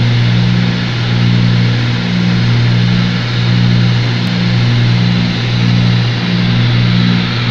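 Cabin sound of a Cessna 310's two six-cylinder piston engines and propellers running steadily in flight, a loud even drone with a slow, regular throb about every 0.7 s. The throb is the beat of the two engines turning at slightly different speeds.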